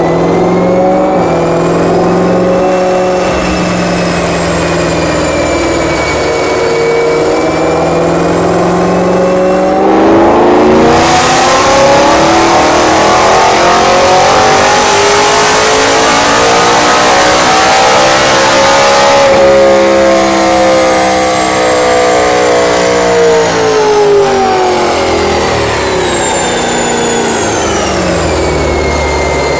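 BMW E92 M3's V8 engine running on a chassis dynamometer. It holds a fairly steady speed for about ten seconds, then the revs climb steadily for about nine seconds, louder and with a rush of hiss. Near the end it winds back down, with a high whine rising and falling along with it.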